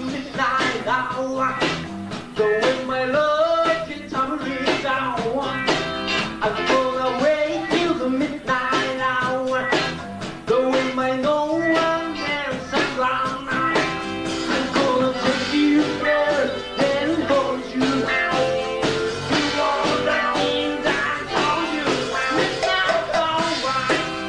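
Live rock band playing: electric guitars, bass and drums in a steady, blues-tinged rock groove.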